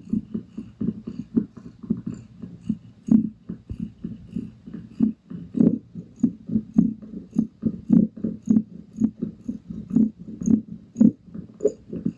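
Heavily pregnant Balinese cat in first-stage labor breathing in quick, even rhythmic pulses with a purring rasp, about two to three a second, with a few soft clicks of movement.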